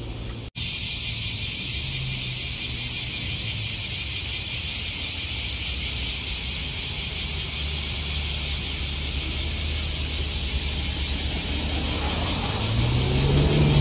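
Kintetsu city bus diesel engine running with a low steady rumble at a stop, then revving up as the bus pulls away near the end. A steady high buzz runs underneath.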